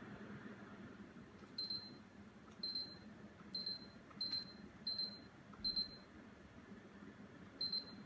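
General-brand split-type inverter air conditioner indoor unit running its fan on low, a steady airflow hiss, with about seven short high beeps at irregular intervals as the unit acknowledges remote-control commands.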